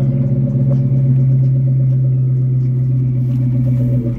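Ford Crown Victoria's custom V8 idling steadily, heard close to its exhaust tip.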